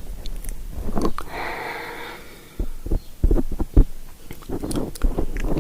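Close-miked ASMR trigger sounds: a soft breathy hiss, then a run of irregular soft clicks and taps right at the microphone.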